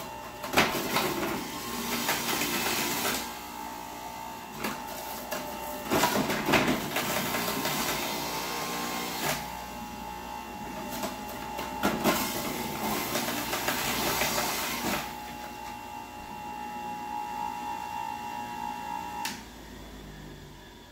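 Electric centrifugal juicer running with a steady whine. It grinds louder each time quartered apples are pressed down the feed chute, and the motor stops suddenly near the end.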